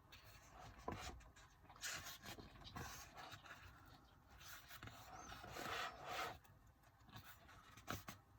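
Faint rustling and scraping of paper and plastic album packaging being handled, in short bursts, with a couple of light clicks.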